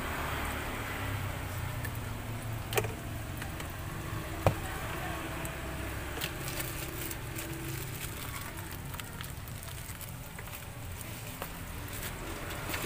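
Steady low rumble of road traffic, with two sharp clicks and light handling noise as plastic takeaway bags are packed.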